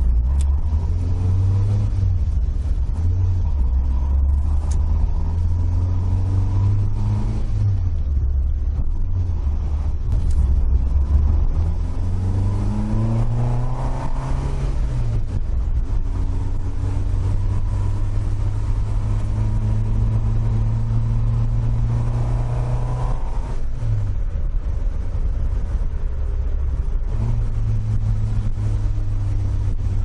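Toyota AE86 Corolla running at speed on an expressway with a steady drone of engine and road noise. About halfway through the engine revs rise under acceleration, then drop at a gear change. It drops once more a few seconds from the end and then steadies.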